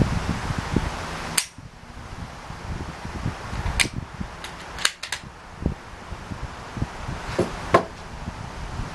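A single shot from a Mosin-Nagant bolt-action rifle about a second and a half in, followed by a series of short sharp metallic clicks as the bolt is worked, then two more clicks near the end, over steady wind noise on the microphone.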